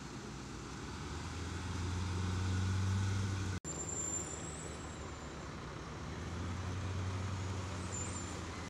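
Heavy military diesel trucks driving past on gravel: a steady low engine drone that swells as a truck comes close, breaks off for an instant about three and a half seconds in, then carries on as a tractor-trailer hauling loaded vehicles passes. A couple of brief, faint high squeaks sound over it.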